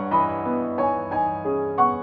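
Background music: a gentle keyboard melody of struck notes, about three a second, each fading after it is played.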